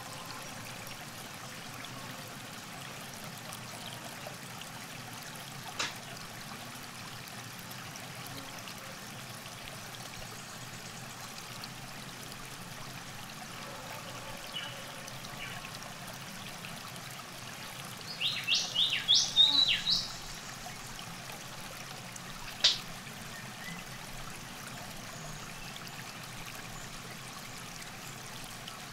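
Steady soft trickle of river water at the bank, with birds calling: a single high chirp about six seconds in, a quick run of high chirps about two-thirds of the way through, and another sharp chirp soon after.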